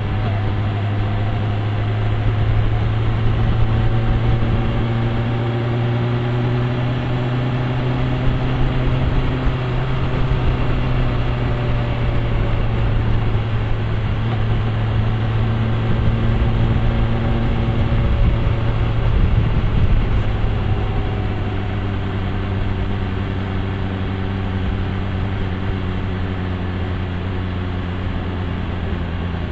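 BMW M1000R's inline-four engine running steadily under way, its note slowly rising and falling with road speed, over a constant haze of road and wind noise.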